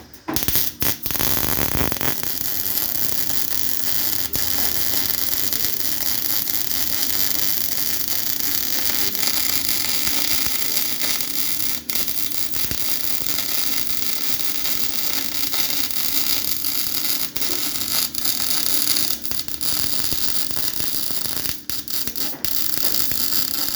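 MIG welding arc crackling and hissing steadily as a bead is run in the flat position. The arc strikes in a few short stutters at the start and breaks off briefly about halfway through and again near the end.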